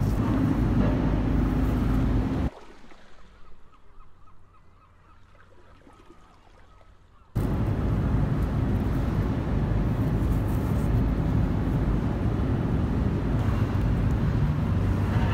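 Steady low outdoor rumble, mostly deep noise. It drops suddenly to a faint hush about two and a half seconds in and comes back just as abruptly some five seconds later.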